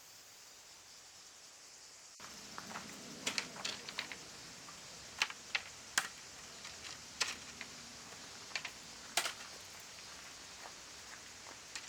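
Irregular light clicks and taps, a few each second and some sharper than others, starting about two seconds in.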